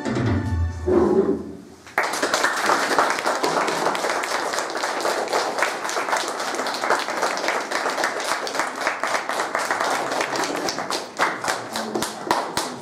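Audience applauding: a dense patter of many hands clapping starts suddenly about two seconds in, after the last notes of music fade, and keeps going steadily.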